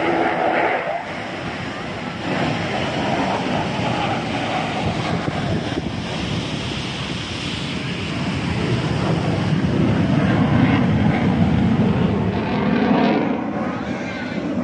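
F-16 fighter jet engine noise from an aerobatic display pass, a broad rushing sound that grows louder about halfway through. Wind buffets the microphone.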